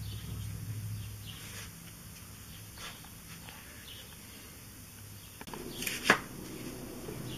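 Hands handling an aluminium beer can on a wooden cutting board: a few faint light knocks, then one sharp click about six seconds in. A low hum fades out after about a second and a half.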